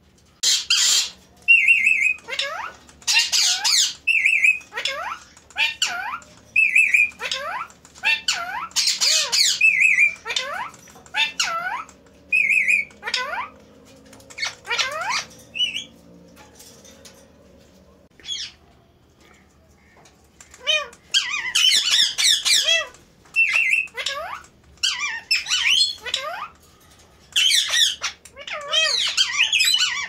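Ring-necked parakeets calling: loud harsh squawks in rapid bouts, many sliding steeply down in pitch, mixed with a short shrill repeated note. The calling thins out about halfway, then resumes in a dense burst near the end.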